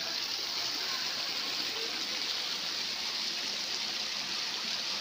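Water pouring steadily from the spouts of a pool water-play structure and splashing into the pool below, a constant rushing sound.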